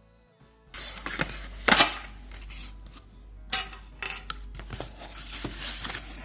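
Rustling and clattering of packaging and accessories being handled out of a camcorder box, starting about a second in, with sharp knocks, the loudest just under two seconds in. Faint background music.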